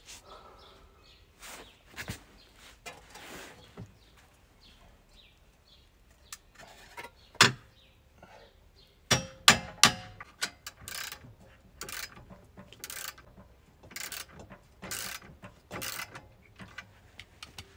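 Hand tools working on a car's rear suspension: a few sharp metal clanks, one with a brief ring, then a run of ratchet wrench strokes about one a second.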